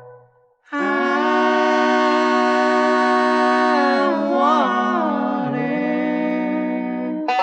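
Bluegrass gospel vocal harmony holding one long sustained chord unaccompanied after a brief stop in the band, shifting pitch once partway through. The banjo picking comes back in near the end.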